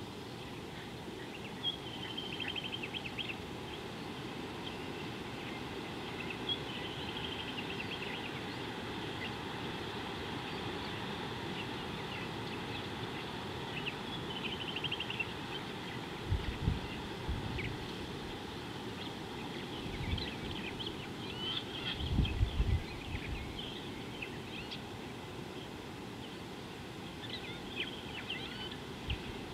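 Outdoor bush ambience: small birds chirping and giving short quick trills over a steady background hiss. Twice, just past halfway and again a few seconds later, low rumbling bursts are the loudest sounds.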